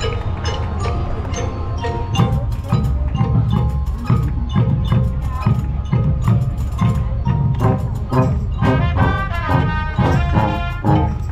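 Music with a steady beat, with wood-block and bell-like percussion; a fuller melodic part comes in about eight and a half seconds in.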